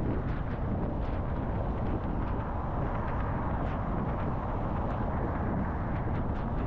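Steady wind and road noise from a car driving at speed: tyre noise and wind on the microphone, with no speech.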